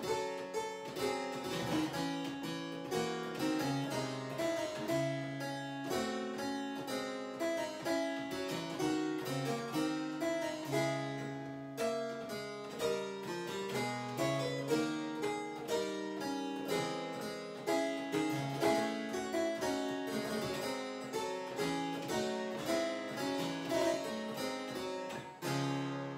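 An improvised fugue played on an early keyboard instrument, several voices moving against each other in counterpoint, closing on a final chord near the end that rings and dies away.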